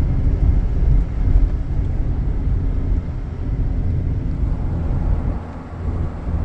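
Low, steady rumble of a pickup truck's engine and tyres heard from inside the cab while it drives along a snow-covered road.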